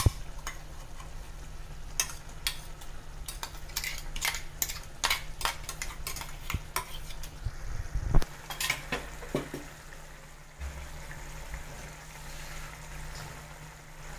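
A steel spoon scraping thick ground coconut paste out of a steel bowl and clinking against the bowl and the kadai, over the curry simmering in the pan. The loudest knock comes about eight seconds in, and the clinking stops near the ten-second mark.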